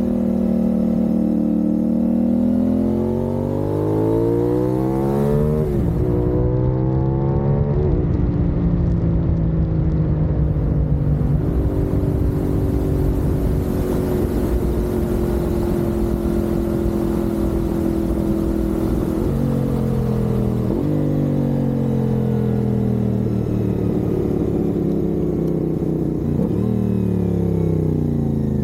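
CFMoto 450SS parallel-twin engine under way: it revs up and shifts up twice in the first several seconds, holds a steady cruise, then slows with the engine pitch falling and two downshifts in the second half. Wind noise on the microphone runs underneath.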